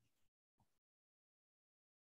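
Near silence: the call's audio has dropped out between speakers.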